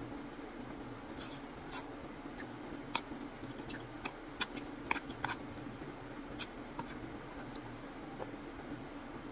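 Eating sounds: wooden chopsticks scraping and tapping in a paper takeout box of pad thai, together with chewing, heard as a scatter of small sharp clicks and scratches, busiest in the middle.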